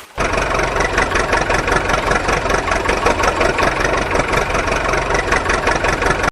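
Engine idling steadily with a fast, even chug; it starts abruptly and cuts off suddenly.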